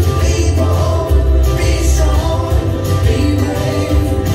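Recorded upbeat Christian children's song: several voices singing together over a band with a strong, steady bass line.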